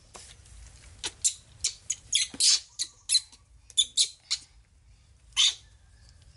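Baby monkey giving an irregular series of short, high-pitched squeaks, about fifteen in all.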